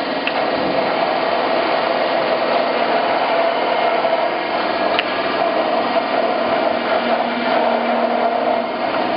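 DiAcro Hydra-Mechanical press brake with its 3 horsepower motor running, a steady mechanical hum with a few faint clicks.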